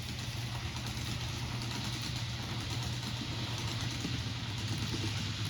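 N-gauge model of an HC85 express train running through on the layout: a steady low motor hum with a rushing rattle of wheels on the rails that grows from about two seconds in.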